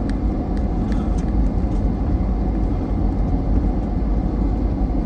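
Four-wheel drive's engine running with a steady low rumble, with a few light clicks or rattles in the first second or so.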